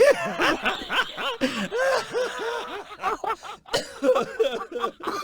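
Men laughing: a long run of short, pulsing chuckles.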